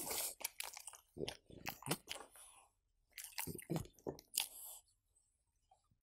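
Close, wet clicking and crunchy scraping in two bursts as a wooden fork digs into soft cooked pumpkin stuffed with cheese.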